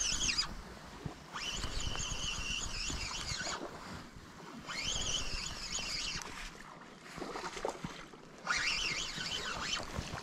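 Spinning reel being cranked in a stepped jig retrieve: bursts of gear whirring one to two seconds long, each rising in pitch as the handle spins up, broken by pauses of about a second while the lure drops.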